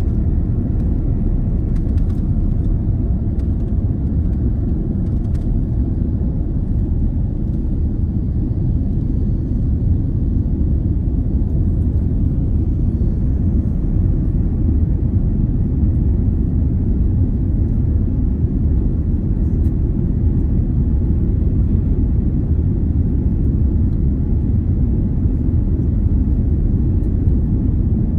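Boeing 787-10 jet engines and airflow during the takeoff climb, a steady low rumble with no change in level.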